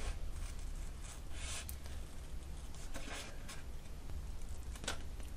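Scissors cutting through glossy sticky-backed paper: several quiet rasping snips of the blades, with a short click near the end.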